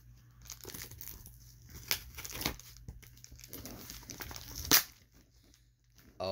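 A mailing package being torn open by hand, its wrapping crinkling and rustling in scattered bursts. There is a sharp snap about three-quarters of the way through, then a moment of quiet.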